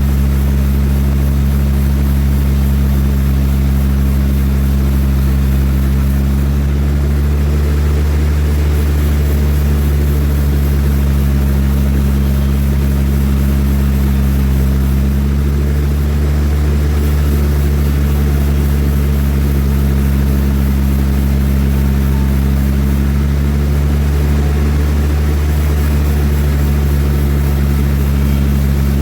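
Large sawmill machinery running steadily with a deep, even engine-like hum.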